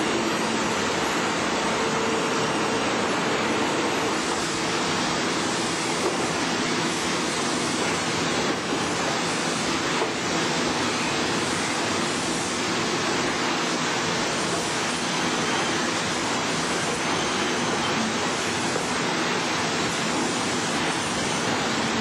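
Sawmill machinery running steadily: an unbroken mechanical din with a faint hum underneath.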